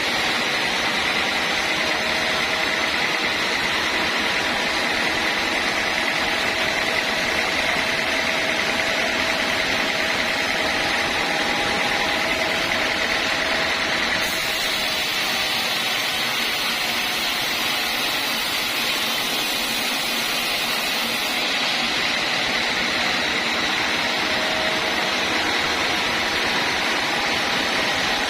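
Homemade band sawmill running steadily, a dense mechanical noise with a constant high whine. The top end grows brighter for several seconds from about halfway through.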